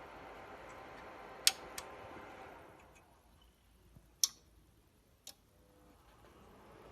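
Low steady hiss with a faint steady tone: the background noise of a home-theater amplifier and speaker during a noise test. Four sharp clicks come about 1.5, 2, 4 and 5 seconds in. The hiss drops away about three seconds in and comes back near the end.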